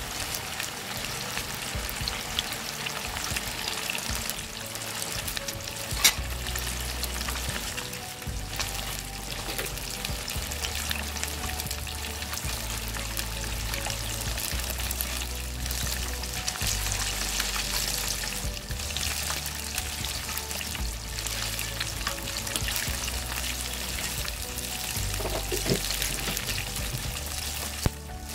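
Masala-coated whole fish frying in hot oil in a shallow pan, sizzling steadily, with one sharp click about six seconds in.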